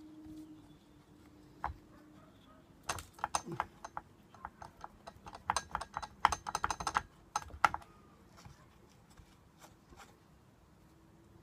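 Light metal clicking and rattling as the chainsaw's bar and chain are handled: a quick run of clicks starts about three seconds in, is busiest in the middle and stops well before the end. A faint ringing tone fades out at the start.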